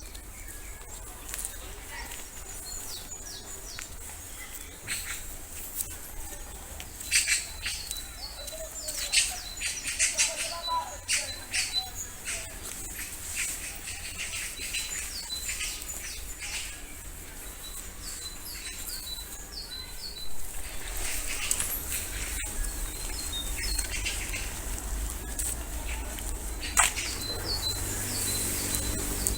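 Small birds chirping, with short high calls repeated on and off throughout, over a low rumble.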